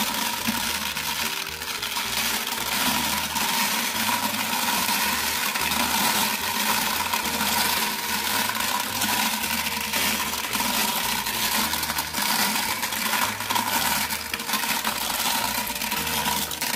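Glass marbles clattering as they tumble out of a turning plastic toy cement-mixer drum and roll down its plastic chute, a continuous stream of quick clicks against each other and the plastic.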